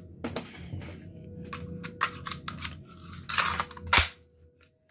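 Metal and plastic clicks and rattles of a cordless nailer being handled as its nail magazine is slid shut, ending in one sharp latching click about four seconds in.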